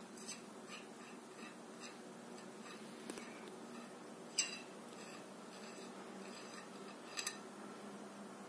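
Small metallic clicks and ticks as the screw-on end cap of a chrome telescopic baton is unscrewed and handled. The sharpest click comes about four seconds in, and a quick pair of clicks near the end.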